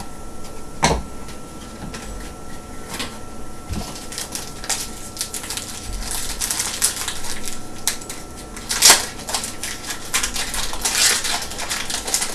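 Trading-card pack wrappers crinkling and tearing as packs are opened and cards are handled, in irregular crackles with sharper bursts about a second in and near the end. A faint steady whine sits underneath.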